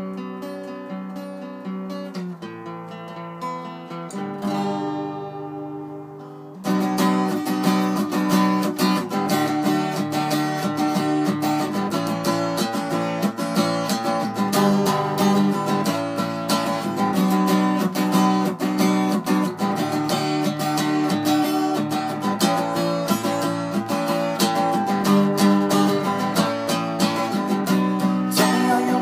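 Steel-string acoustic guitar playing an instrumental passage: softer chords left ringing for the first several seconds, then, about seven seconds in, suddenly louder steady chord strumming.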